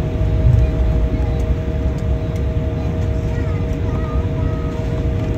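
Airliner cabin noise while taxiing: a steady low rumble with a constant two-note hum over it.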